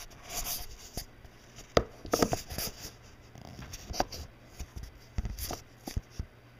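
Handling noise on a hand-held camera as it is moved about and repositioned: scattered knocks, clicks and rubbing, the sharpest knock a little under two seconds in.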